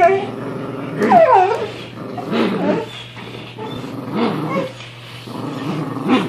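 Dogs growling in play while tugging on a rope toy, with a high gliding whine about a second in and low growls every second or two after it.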